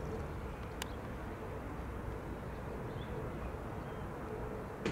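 Jet engines of an Airbus A319 airliner heard from a distance on approach: a steady rumble with a faint hum. Two sharp clicks stand out, one about a second in and one near the end.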